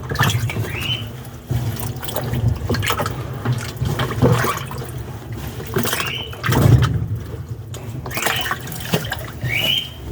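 Washing machine churning water and laundry, its motor humming, with a short rising squeak three times. The machine is agitating to work loose a piece of clothing caught in it.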